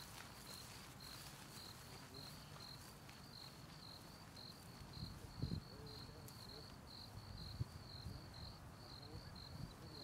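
A cricket chirping steadily, about three short high chirps a second. Two brief low thumps come midway and later.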